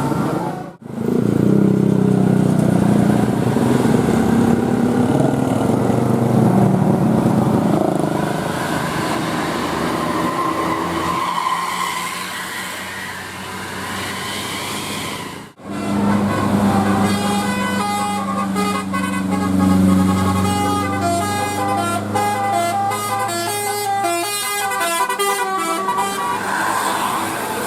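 Bus 'telolet' multi-tone air horns sounding, in two abruptly cut-together clips. In the second clip the horn plays a quick tune of stepping notes over a steady low bus sound.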